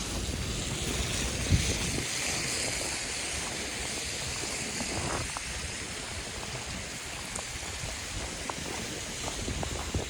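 Steady wind rushing over the microphone outdoors in deep snow, with a few faint soft footfalls now and then.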